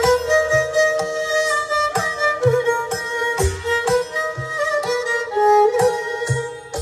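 Music played loud through a sound system: a violin-like lead melody over heavy bass hits about twice a second.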